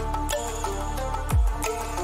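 Background electronic music with a steady beat, pitched synth lines and a deep falling bass hit past the middle.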